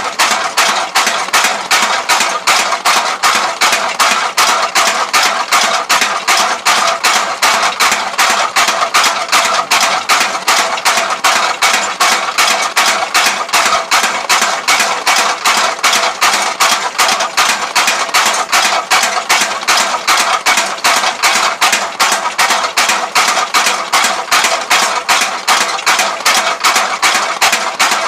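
Homemade mechanical power hammer pounding steel in a steady, rapid rhythm of ringing metallic blows, several a second, forging a sickle blade.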